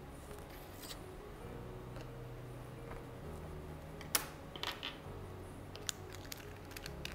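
Small glass roller bottle being capped: a few short sharp clicks and taps as the roller top and cap go on and the bottle is handled on the table, the loudest click about four seconds in.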